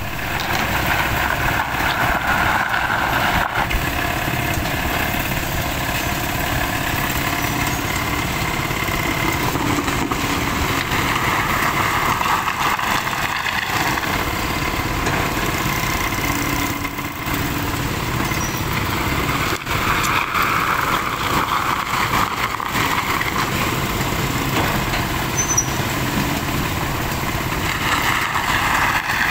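Kobelco crawler excavator's diesel engine running under load as it digs, its pitch rising and falling with the work, mixed with passing street traffic and motorcycles.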